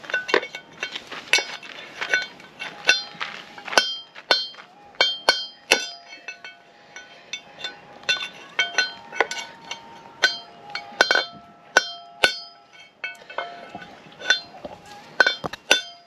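Steel hammer striking the bearing race inside the hub of a caravan brake drum: repeated, irregular, sharp metallic clinks, about two a second, with the drum ringing briefly after each blow.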